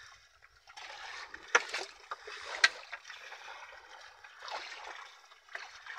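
Wooden paddle strokes in the sea beside a small outrigger canoe: water swishing and splashing with each stroke, with two sharp knocks about a second apart near the middle.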